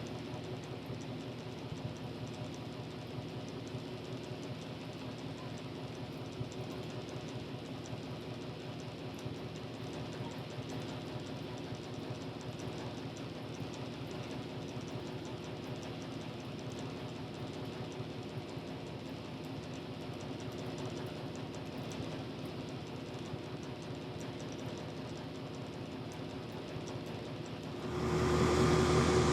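Farm machinery engine running steadily. Near the end the sound suddenly grows louder and a steady hum joins it.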